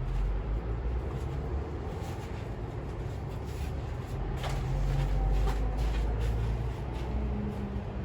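A steady low rumble with a few light clicks and knocks.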